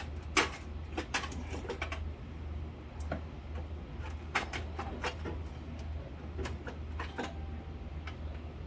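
Scattered metal clicks and clanks, about a dozen sharp knocks at uneven spacing, the loudest near the start, as a four-cylinder engine hanging on a hoist chain is worked loose from the car. A low steady hum runs underneath.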